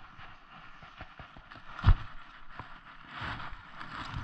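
Rustling of heavy winter clothing and gloves, with scattered small knocks from handling gear, and one loud dull thump about two seconds in.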